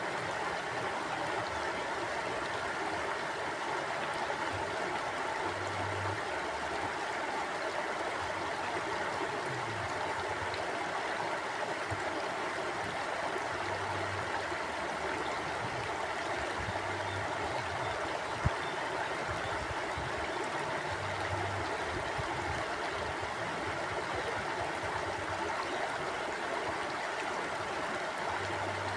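Mountain river flowing with a steady, even rush of water. A single sharp click stands out about two-thirds of the way through.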